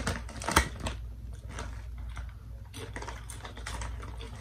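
Crinkly plastic chip bag being handled and rustled, with short sharp crackles, one loud one about half a second in.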